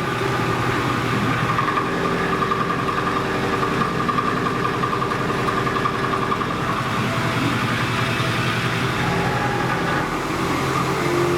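Milling machine machining a stamping die: a steady mechanical running noise with a constant whine over a rough hum, its lower tone shifting near the end.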